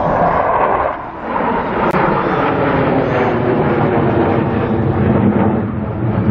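Jet aircraft flying past overhead: a loud, continuous roar that dips briefly about a second in.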